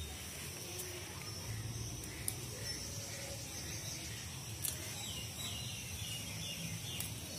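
Garden ambience: a steady high insect drone, with a bird giving a run of short falling chirps about five seconds in and a few faint clicks.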